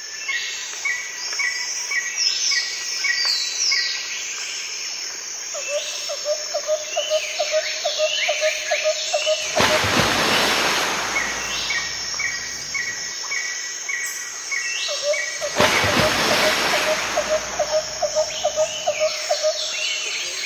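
Birds singing outdoors: a steady series of short repeated chirps, with falling higher notes and a lower rapid run of repeated notes heard twice. Two bursts of rustling noise come about halfway through and again about three quarters of the way through.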